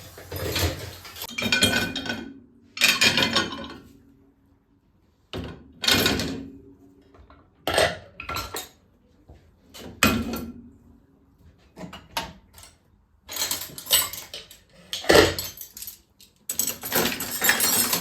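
Dishes and cutlery clinking and clattering as they are handled, in a string of separate knocks with short pauses between them.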